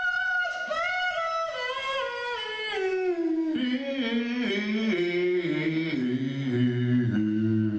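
A solo male voice sings a long descending run, stepping down note by note from a high falsetto pitch to a very low bass note by the end.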